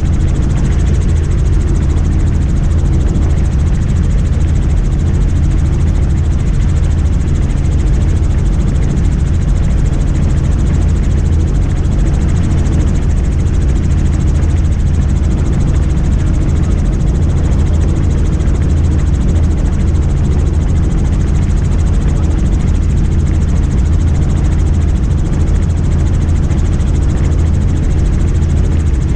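Helicopter engine and rotor noise heard inside the cabin in steady flight: a loud, unchanging low drone with a hiss of wind over it.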